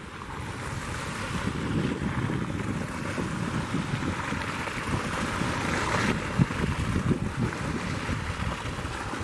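Wake waves from a passing river cruise ship washing in and breaking along a gravel bank, with wind buffeting the microphone.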